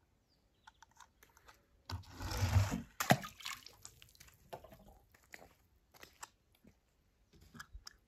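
Small handling noises: a crunching rustle about two seconds in, then scattered clicks and taps.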